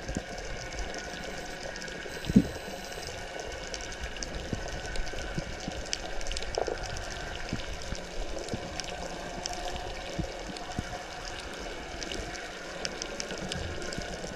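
Underwater ambience picked up by a diving camera: a steady hiss with scattered clicks and crackles throughout, and one sharper knock about two seconds in.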